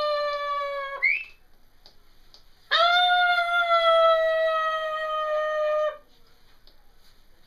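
Blue-and-gold macaw giving long, held calls, a stretched-out 'sooo', each sliding slowly down in pitch. The first breaks off with a quick upward squeak about a second in. After a short pause a second call holds for about three seconds.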